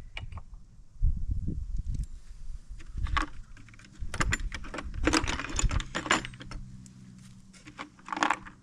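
Small metal parts clinking and rattling in scattered clicks and scrapes as bolts and nylon lock nuts are handled while a winch fairlead is bolted onto its mount.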